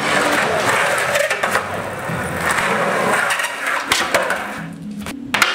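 Skateboard rolling on a garage floor, its wheels making a steady rumble, with a few sharp clacks of the board, the loudest near the end.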